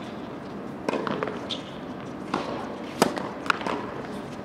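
Tennis ball hit by rackets and bouncing on a hard court during a doubles rally: a handful of sharp pops a second or so apart, the loudest about three seconds in.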